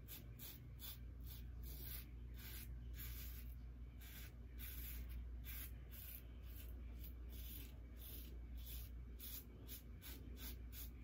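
Double-edge safety razor scraping through lathered stubble in short, repeated strokes, about two or three a second; faint.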